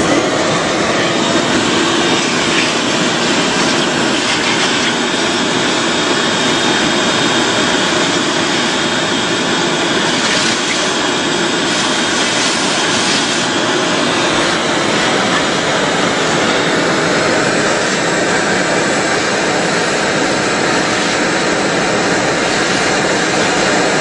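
Vacuum cleaner running steadily, a loud even rushing noise, sucking up loose dirt through its hose.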